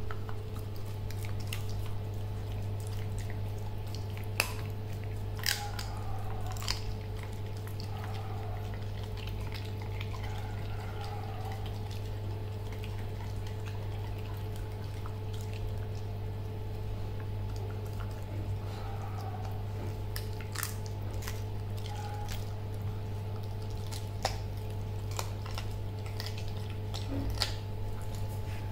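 A puppy chewing a raw chicken wing, with wet mouth sounds and scattered sharp clicks of teeth on bone, over a steady low hum.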